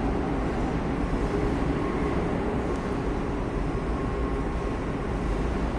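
Madrid Metro train at the far end of an underground station platform: a steady low rumble with faint steady tones over it.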